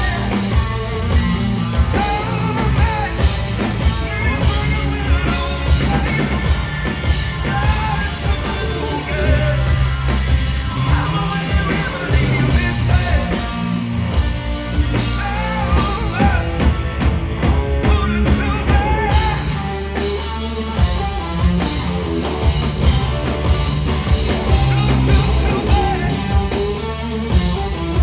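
Live blues-rock band playing electric guitar, bass and drums under a male lead vocal. The bass and drums briefly drop back twice, about 14 and 20 seconds in.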